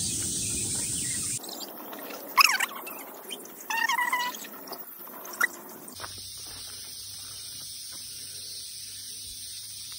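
A painted wooden temple prayer wheel creaking as it is pushed round by hand, with a few short, high squeaks. The steady background noise changes abruptly twice.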